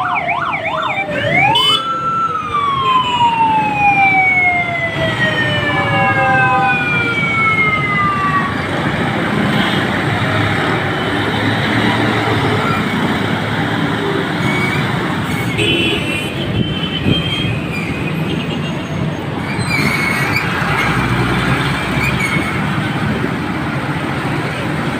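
Congested road traffic of cars, motorcycles, auto-rickshaws and trucks. A siren warbles fast into the first second, then slides down in pitch and fades over the next several seconds, and a few short horn beeps come later.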